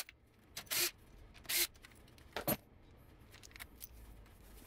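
A few short metallic scrapes and clinks of engine parts being handled as a valve cover comes off a Honda VFR800 V4 engine's cylinder head: three brief bursts about a second apart.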